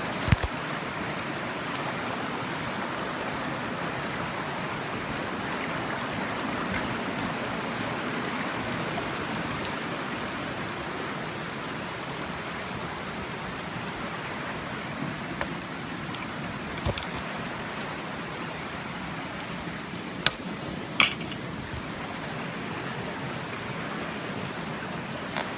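Steady rush of a flowing trout stream, with a few brief clicks or knocks about two-thirds of the way in.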